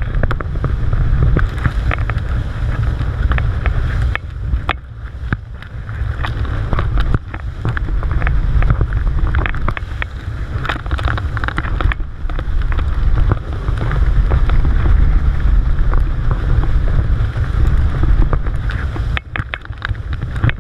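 Wind buffeting the microphone on the bow of a motorboat under way, a heavy rumble that rises and falls, with water rushing and splashing off the hull.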